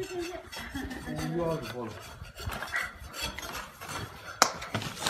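Scattered clinks, scrapes and rustles of things being handled, with a sharp knock about four and a half seconds in. A short wavering voice sounds in the first two seconds.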